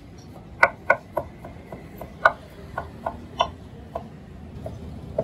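A Chinese cleaver chopping braised meat and green peppers on a wooden cutting board: irregular knocks, roughly two a second, some much louder than others.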